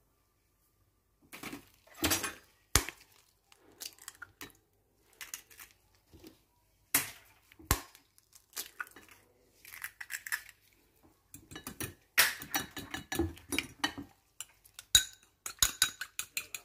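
Eggs being cracked, with knocks and clinks of ceramic bowls, followed from about twelve seconds in by a fork beating eggs in a ceramic bowl: a quick, dense run of clinks of metal on china.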